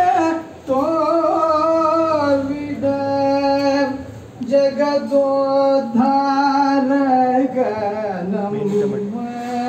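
A man's solo singing voice in a devotional song, long held notes that bend and waver in pitch, sung in phrases with short breath pauses.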